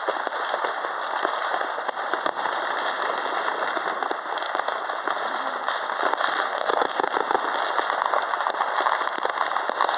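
Many fireworks and firecrackers going off at once, a dense, unbroken crackle of small pops and bangs with no pauses.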